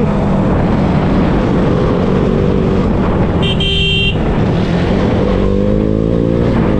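Motorcycle engine running on the road. A vehicle horn honks once, briefly, about three and a half seconds in, and the engine pitch rises near the end as it accelerates.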